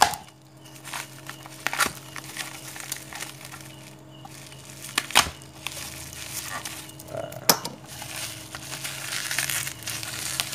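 Plastic wrapping crinkling and rustling as it is handled and cut open with a utility knife, with a few sharp clicks along the way and denser crinkling near the end.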